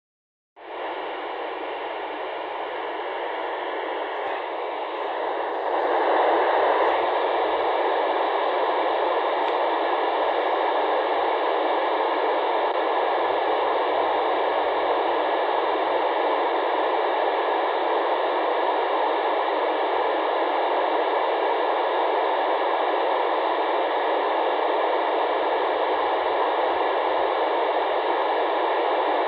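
Radio receiver hiss: steady FM static from a receiver tuned to the SO-50 amateur satellite's downlink, with no station's voice coming through. It starts abruptly just after the beginning and gets louder about six seconds in.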